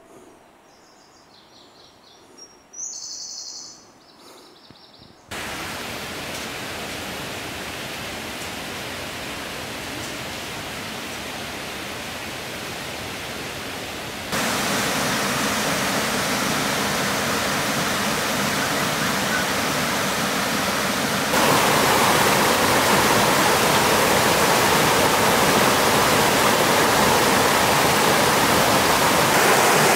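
Seorak Falls cascading over rock slabs, a steady rush of water. It starts about five seconds in and gets louder in two steps, about fourteen and twenty-one seconds in. A brief high chirp comes about three seconds in, before the water.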